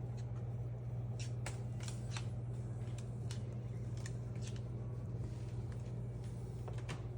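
A cockatoo rummaging through its toys: scattered light clicks and rattles of small toys being picked through and moved about, over a steady low hum.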